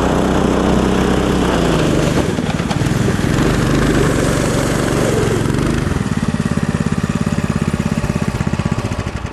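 Go-kart's small engine running under throttle, rising in pitch about midway, then settling into an even, pulsing low idle and dying away at the end.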